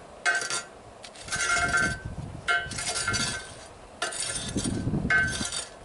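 A homemade steel forge rake, made from riding-lawnmower steel, scraping ash and unburned charcoal across the metal grate of a wheel-rim forge. There are about five raking strokes, each a gritty scrape with metallic clinks and a brief ring.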